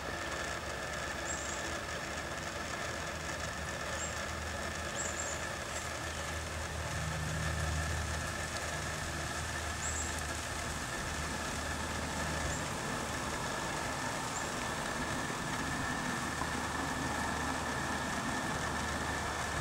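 Steady outdoor ambience: a low engine-like hum, typical of distant motor traffic, that swells about seven seconds in, over an even hiss of flowing creek water, with a few faint high chirps.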